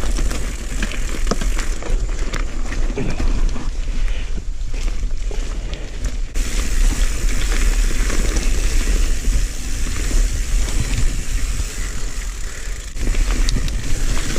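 Mountain bike being ridden over rough trail: steady wind rush and rumble on the camera microphone, with tyre noise and scattered rattles and knocks from the bike.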